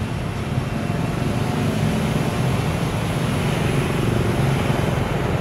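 Steady low rumble with a hiss over it: background motor-vehicle noise.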